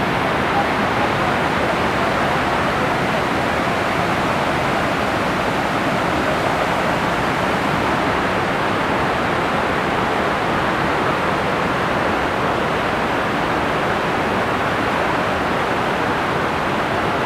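Steady, unbroken rush of water from a waterfall in flood, with no change in level throughout.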